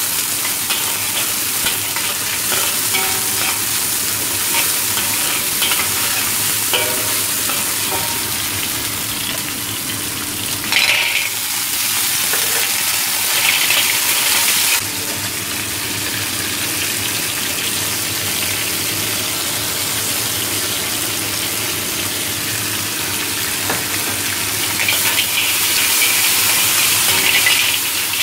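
Stir-frying in a wok: chillies, garlic, ginger and spring onion sizzling in hot oil while a metal spatula scrapes and tosses them. About eleven seconds in the sizzling jumps suddenly louder as the sea snails go into the wok, and it carries on under the scraping spatula.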